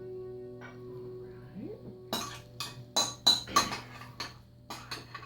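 A spoon clinking and scraping against a mixing bowl while egg salad is scooped out, a quick run of sharp clinks starting about two seconds in.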